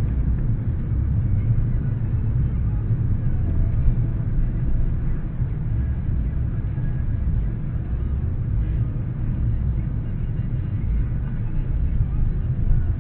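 Steady low rumble of a car driving, with road and engine noise heard from inside the cabin. It is picked up by the dash cam's built-in microphone and sounds dull, with no high end.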